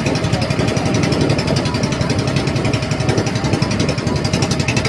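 Outrigger boat's (bangka) engine running steadily, with a rapid, even pulsing.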